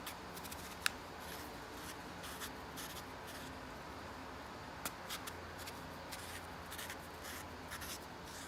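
Light handling sounds: scattered small clicks and soft rustling, with one sharp click about a second in and a few more around the middle and near the end.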